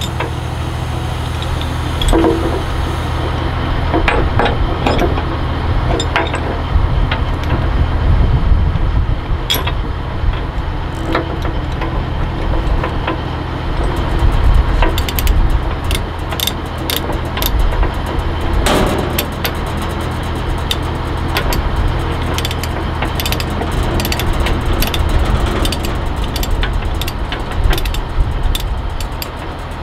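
Chain ratchet binder being worked on a tie-down chain: scattered metal knocks and chain clanks, then from about halfway a run of quick, regular ratchet clicks. A steady low engine hum runs underneath.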